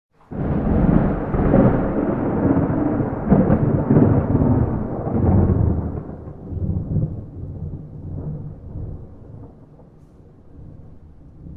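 A thunderclap with no rain: a sudden loud crack that rolls into a deep rumble with several swells over the first five seconds, then fades away slowly.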